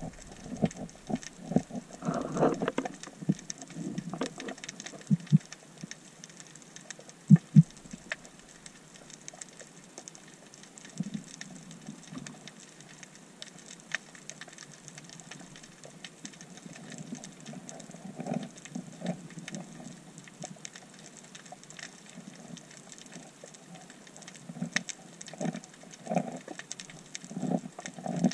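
Underwater ambience recorded through a camera housing: irregular crackling clicks, with a few dull knocks, two of them close together about a quarter of the way in.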